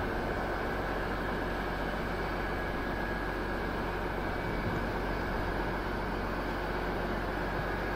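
DB class 218 diesel-hydraulic locomotive's V12 diesel engine running steadily, with a thin high whine over it.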